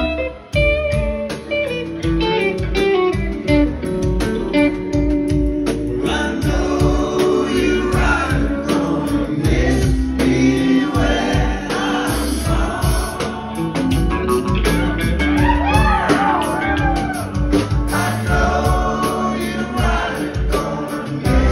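Live rock band playing loud: Stratocaster-style electric guitar lines over bass and drums, then from about six seconds in two men's voices singing together over the band.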